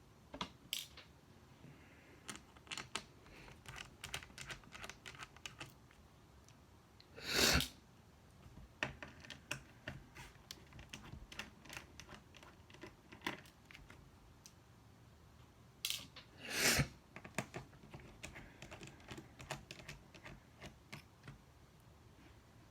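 Small clicks and taps of a screwdriver working the Phillips screws out of a laptop's screen mounts, with two louder half-second handling noises, one about a third of the way in and one about two-thirds in.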